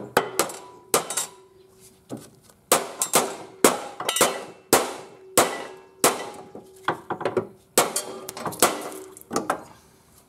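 Hand hammer striking the steel mower deck of a Cub Cadet LTX 1050: about twenty blows at an uneven pace, each with a short metallic ring.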